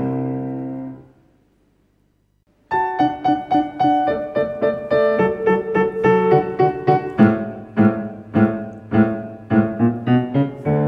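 A held chord of accompaniment dies away, then after about a second and a half of silence a grand piano starts a rhythmic introduction to a children's song.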